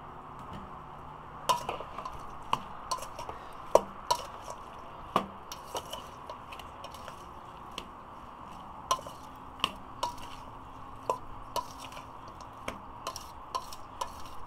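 A metal spoon stirring and tossing seasoned pig tail pieces in a stainless steel mixing bowl: irregular clinks and knocks of spoon on bowl, roughly one or two a second, with the meat shifting wetly between them.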